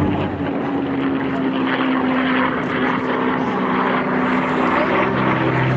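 P-51D Mustang's Merlin V12 piston engine driving its propeller in flight, a loud steady drone that drops slightly in pitch at the start.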